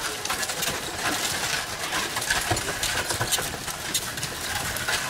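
Ox-cart rolling along a dirt road, its cart and harness clattering and knocking irregularly.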